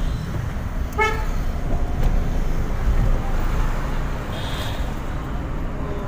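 Street traffic with a steady low rumble of engines, a short vehicle horn toot about a second in, and a brief high-pitched sound around four and a half seconds in.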